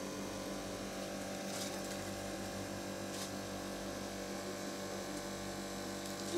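Steady electrical hum of several fixed tones over a low buzz, with two faint crisp crunches, about one and a half and three seconds in, as a crispy fried chicken nugget is bitten and chewed.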